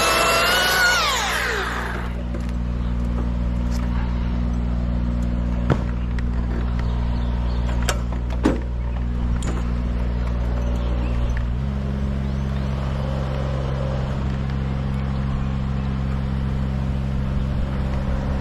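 Music fades out in the first couple of seconds, then an engine runs steadily, shifting to a slightly different speed about two-thirds of the way through. A few sharp knocks sound over it.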